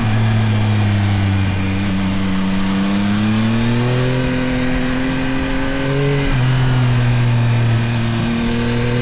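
Yamaha Tracer 9 GT+'s CP3 inline-three engine under way, its pitch easing slightly, then climbing for a few seconds as it accelerates before dropping sharply about six seconds in at a gear change, then holding steady.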